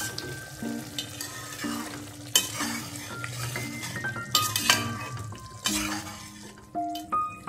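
Metal slotted spatula stirring soya chunks in a stainless steel pan of hot oily gravy, scraping and knocking against the pan over a steady sizzle. A light background music tune plays underneath.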